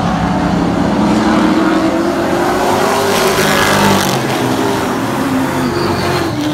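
A pack of late model stock cars racing, many engines running hard together with their pitch rising and falling. Loudest as the field passes close about a second to four seconds in.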